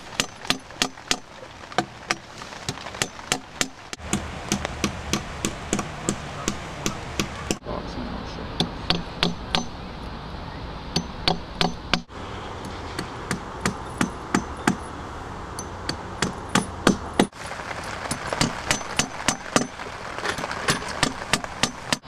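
Claw hammer driving steel nails into an elm log: quick repeated blows of metal on metal, about three a second, each a sharp tap.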